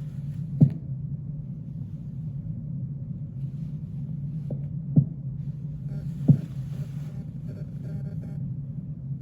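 Bowel sounds heard through a stethoscope on the abdomen: a steady low rumble with a few short clicks, three louder ones a few seconds apart.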